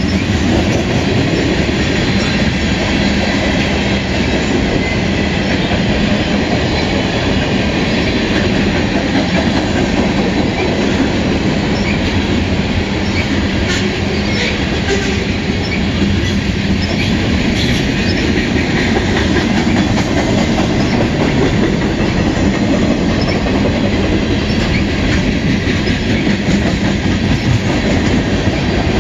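Freight cars (covered hoppers and tank cars) rolling past at speed: a steady, loud rumble and rattle of steel wheels on the rails, with a few sharp clicks near the middle.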